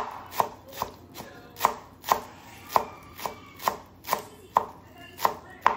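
Chef's knife chopping green onions on a plastic cutting board: a steady run of sharp knocks, about two a second.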